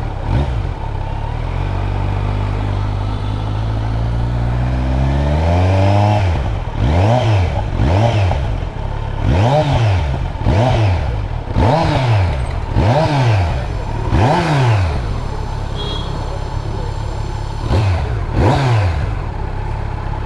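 Kawasaki Z900 inline-four engine idling, then revved: the revs climb slowly for a few seconds, followed by about nine quick throttle blips that each rise and drop back to idle. The engine is being run to check for a clattering 'tuck tuck' noise that the owner hears at idle.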